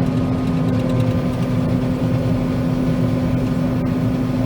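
John Deere 9500 combine running steadily under load while threshing soybeans, heard from inside the cab: an even mechanical drone with a constant hum.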